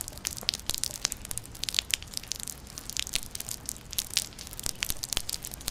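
A rain sound effect playing back as a dense, irregular crackling and popping patter that sounds much like chicken cutlet frying in oil.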